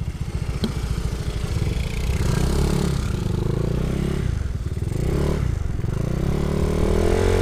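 Motorcycle engine running under way, its pitch rising and falling as the throttle changes and growing louder toward the end.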